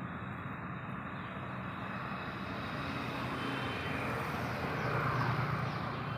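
Street traffic noise: the steady hum of engines on the road, swelling a little about five seconds in as a vehicle comes closer.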